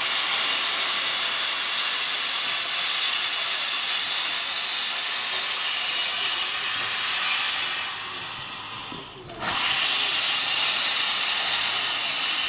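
Steam locomotive venting a heavy jet of steam from low beside its drivers, a loud steady hiss. It fades about eight seconds in and bursts back to full strength about a second and a half later.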